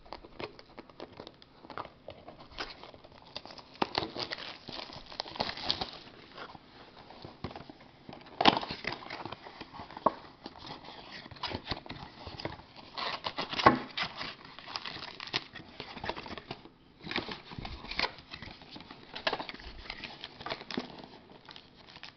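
Plastic shrink-wrap being torn and crinkled off a sealed trading-card box, then the cardboard box opened and card packs pulled out: irregular crackling and rustling with two sharper snaps partway through.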